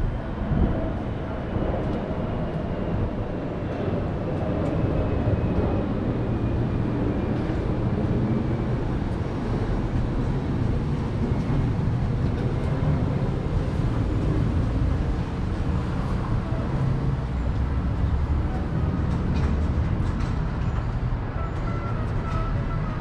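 Outdoor urban ambience: a steady low rumble throughout, with a faint high whine slowly falling in pitch over the first several seconds.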